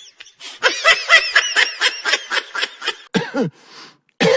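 A person laughing in a rapid run of short, high-pitched bursts, about seven a second, followed near the end by a short falling vocal sound.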